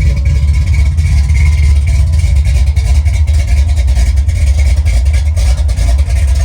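468 cubic-inch big-block Chevy V8 with a roller cam idling with a lumpy, choppy beat through 3-inch steel exhaust and Dynomax Ultra-Flow mufflers, while it warms up after a cold start.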